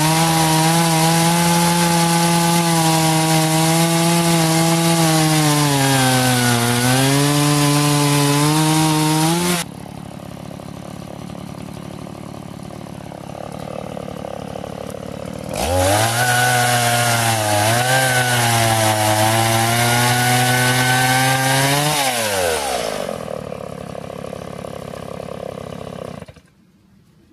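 Stihl MS 170 chainsaw, a small two-stroke, at full throttle cutting through a log, its pitch sagging as the chain bites into the wood. It drops back to idle, then runs at full throttle through a second cut. The engine then winds down, idles, and is switched off, stopping abruptly shortly before the end.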